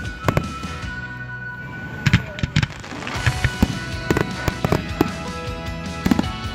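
Fireworks going off: a string of sharp, irregular bangs and pops, several close together at times, over background music.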